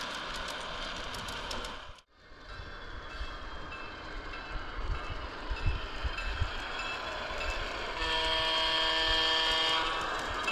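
Digital diesel locomotive sound from a SoundTraxx Blunami decoder in a G scale model diesel, with the engine sound running steadily and a horn blast of about two seconds near the end. The sound cuts out briefly about two seconds in.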